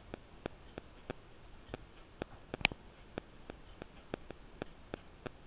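Faint small clicks, about three a second and slightly uneven, with one sharper click a little past the middle: cashew nuts and spoonfuls of poppy seeds dropped by hand into a stainless-steel mixer-grinder jar.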